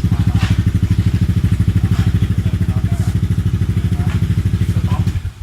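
Honda Forza 300 scooter's single-cylinder four-stroke engine idling with an even, rapid beat, stopping abruptly near the end.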